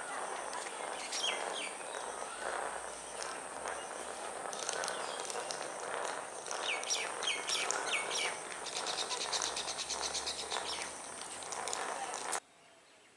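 Birds chirping and calling, with several short chirps and a fast trill, over a steady high whine and outdoor background noise. Everything cuts off abruptly near the end.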